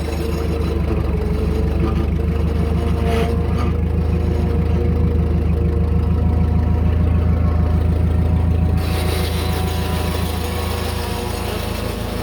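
Case 1845 Special skid steer's gas four-cylinder engine running with a steady low pulsing, through a cracked exhaust manifold and a muffler that has rotted away. A harsher, hissier noise joins about nine seconds in.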